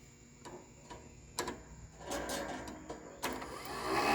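Riding lawn mower's electric starter motor whirring without turning the engine over, with a few sharp clicks before it and louder near the end. The starter spins but does not catch the flywheel, which the owner puts down to starter teeth that are missing or ground down.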